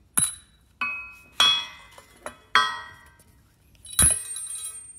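Metal parts knocking and clinking on a steel workbench, about half a dozen sharp hits that each ring briefly, with a heavier thud and a longer high ring about four seconds in, as a link end and its removed Duroflex joint are handled and set down.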